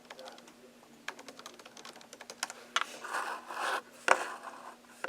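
Typing on a computer keyboard: a run of quick, light key clicks, then a short rustle and one sharper click near the end.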